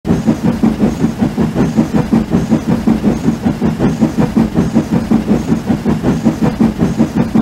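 Steam locomotive running, with a steady, fast rhythmic chuffing of about four to five beats a second.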